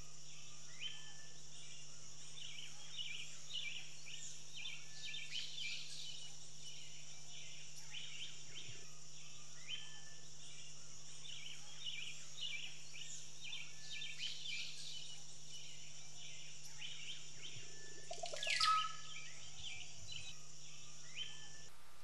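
Natural ambience of many birds chirping and calling, with short notes all the way through over a steady high hiss. One loud call slides down in pitch about 19 seconds in.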